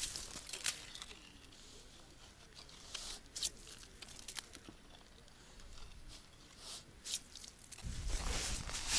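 Faint, scattered crunches and scrapes of ice and snow as a freshly drilled ice-fishing hole is cleared with a scoop and boots. A louder rustling noise starts near the end.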